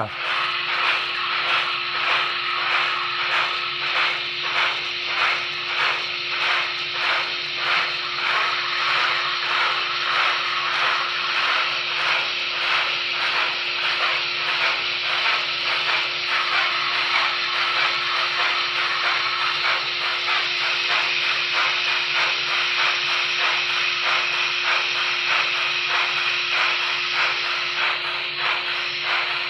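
Paragon4 sound decoder in a Broadway Limited N scale USRA 2-8-2 Mikado, playing steam-locomotive chuffing through the model's small onboard speaker. The hissy exhaust beats repeat evenly and come faster in the second half, over a steady hum.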